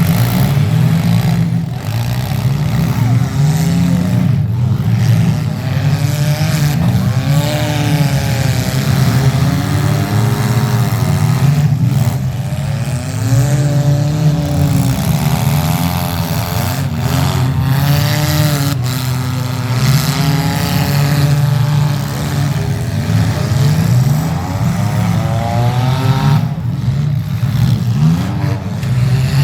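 Demolition derby cars' engines running under a steady low rumble, with several of them revving up and down over and over, the pitch rising and falling every second or two.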